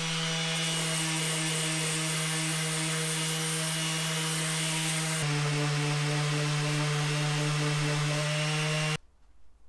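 Makita random orbital sander running steadily against a steel hammer head, sanding the rusty, pitted metal smooth. Its pitch drops slightly about five seconds in, and it cuts off abruptly about nine seconds in.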